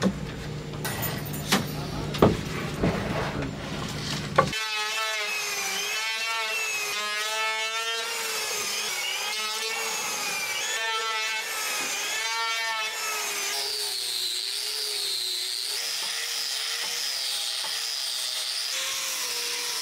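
A few wooden knocks and clicks as glued scrap-wood strips are clamped. About four seconds in, an electric hand planer starts, its motor tone wavering and swelling with each pass over the panel. Past the middle it gives way to the higher, steady whine of an angle grinder with a sanding disc smoothing the wood.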